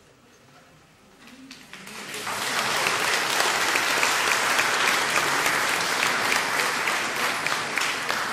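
Audience applause after a choir's song: a moment of quiet, then clapping swells up about two seconds in and carries on steadily.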